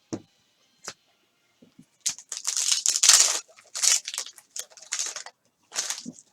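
Crinkling and tearing of a plastic trading-card pack wrapper as it is ripped open, in several loud, crackly bursts after a couple of light clicks.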